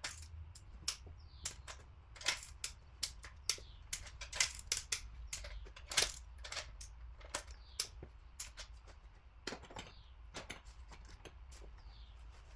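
Metal hand tools clicking and clinking, with irregular sharp clicks a few times a second over a faint low hum. This fits work on the cylinder head bolts of a Mercedes-AMG M157 V8.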